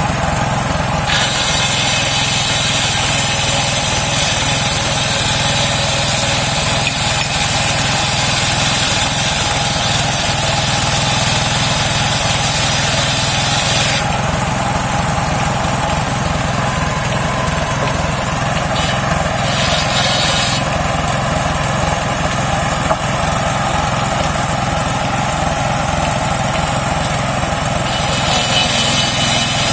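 Engine-driven homemade circular sawmill running steadily, its big blade cutting through a rain tree (saman) log in long passes: a high, hissing cut sound comes in about a second in and stops around halfway, returns briefly, and starts again near the end, over the constant drone of the engine.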